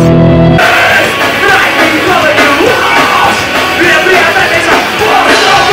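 The tail of a short channel jingle with steady held chords, cut off about half a second in by a live rock band: electric guitars, drums and a male singer's vocals.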